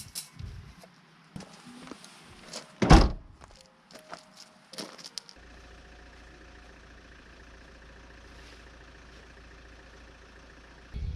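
A car door shutting with a loud thunk about three seconds in, among lighter knocks and clicks, then a steady low hum from about halfway on.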